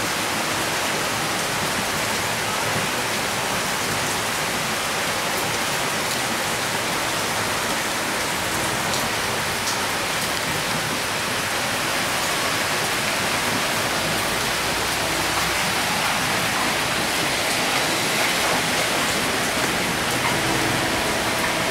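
Heavy rain falling steadily on a waterlogged street and shop roofs: a dense, even hiss that keeps up without a break.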